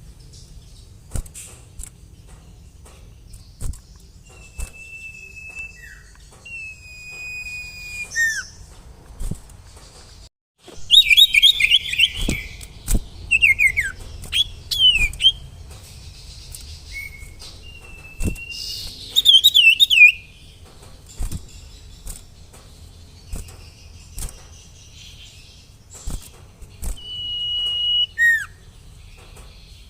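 Sirtu (common iora) singing: long, clear whistled notes alternating with loud bursts of rapid, chattering warbled phrases.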